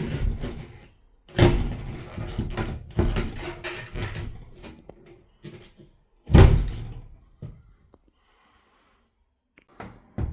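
Hard parts being handled: a run of knocks, scrapes and rubbing, with a heavy thump about six seconds in and a short quiet gap before the noise starts again near the end.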